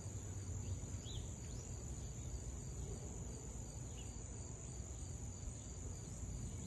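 Steady high-pitched insect trilling, like crickets, over a low outdoor rumble, with a few faint short chirps.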